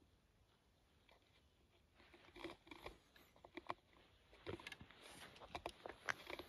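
Near silence at first. From about two seconds in come faint, irregular scuffs and clicks of footsteps on dry dirt and of a handheld phone camera being moved.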